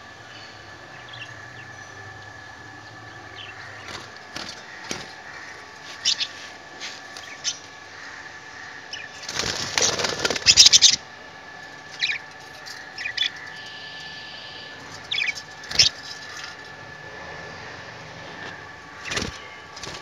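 Pet budgerigars in a wire cage: near the middle a budgie flaps its wings for about two seconds, the loudest sound. Short chirps and clicks come here and there.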